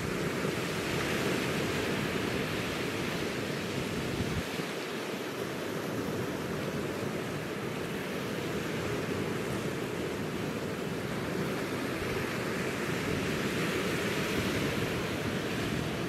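Sea surf breaking over rocks and washing onto a stony shore: a continuous rushing of waves that swells about a second in and again near the end.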